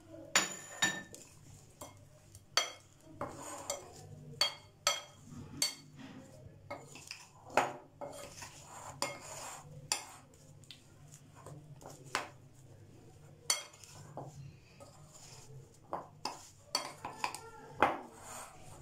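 Raw chicken pieces being tossed by hand in a glass mixing bowl of dry flour and cornflour, with irregular taps and clinks against the glass.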